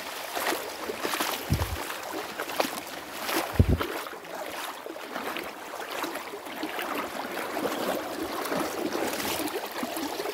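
Shallow creek water running and splashing over a stony bed, with small splashes throughout. Two low thumps come about two seconds apart, the second the loudest.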